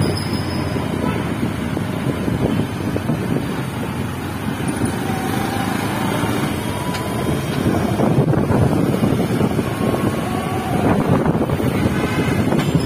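Wind rushing over the microphone on a moving motorbike, over a steady rumble of road traffic.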